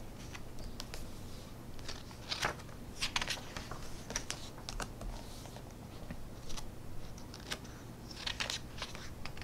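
Pages of a hardback book being turned and smoothed flat by hand: light paper rustles and soft ticks in small clusters.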